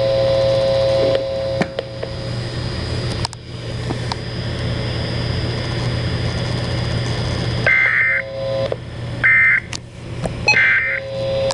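Emergency Alert System end-of-message data tones: three short, shrill digital bursts about a second and a half apart, sounding after several seconds of broadcast hiss and a steady electronic hum.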